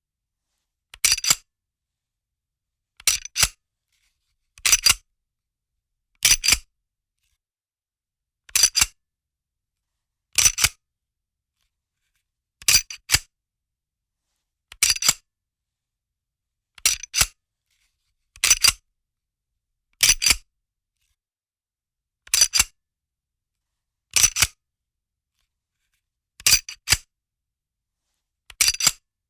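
A gun's slide being racked again and again. Each rack is a pair of sharp metallic clicks a fraction of a second apart, as the slide is pulled back and snaps forward, repeated about every two seconds with silence between.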